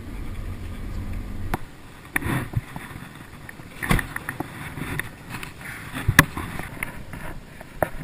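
Low road rumble inside a moving car's cabin, cut off by a sharp click about a second and a half in. Scattered clicks, knocks and rustling follow.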